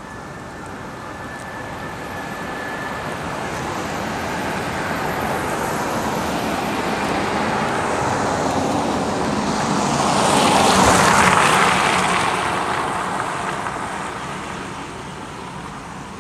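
A motor vehicle passing by: a steady rushing noise that builds slowly, is loudest about eleven seconds in, then fades away.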